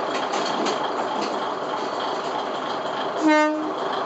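Diesel railcar running steadily beside the platform, with one short blast of its horn about three seconds in.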